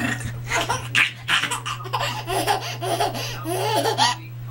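Baby laughing, a quick run of laughs and giggly squeals that stops about four seconds in.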